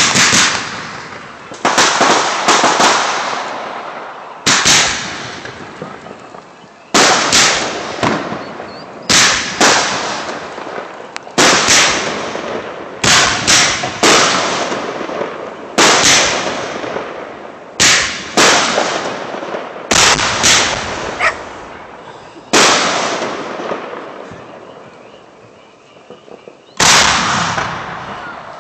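Fireworks bursting, a loud bang about every two seconds, some of them doubled, each trailing off in a long fading rumble. A longer pause comes near the end before one last bang.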